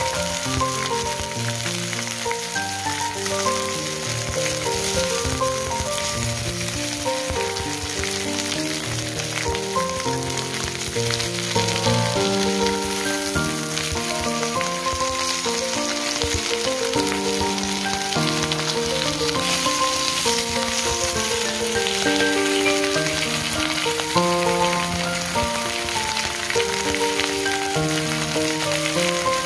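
Whole sea bream sizzling steadily as they fry in hot oil in a nonstick frying pan, alongside slices of ginger. A gentle melody of held notes plays throughout as background music.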